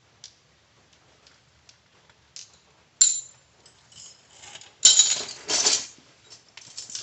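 Metal hand tools and parts clinking and scraping while working on a car's wheel hub: faint ticks, a sharp ringing clink about three seconds in, then a loud stretch of metallic rattling and scraping near the end.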